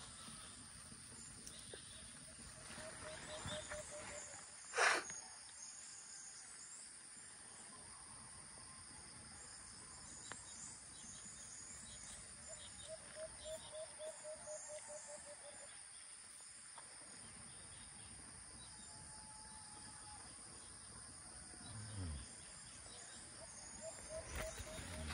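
Faint, steady high-pitched insect chirring in the open air, joined three times by a short run of rapid low pulses. A single sharp knock sounds about five seconds in.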